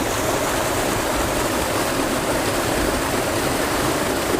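Mountain trout stream rushing steadily over rocks, a continuous even wash of water.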